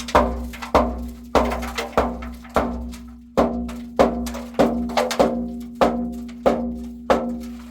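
Background music: a percussion beat striking about every 0.6 s over a held low note.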